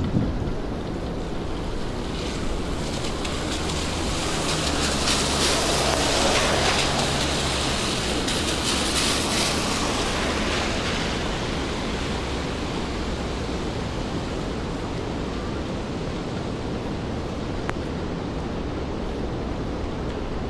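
Steady rain and wet-street city ambience; a vehicle passes on the wet road, its tyre hiss swelling up and fading away over several seconds in the first half.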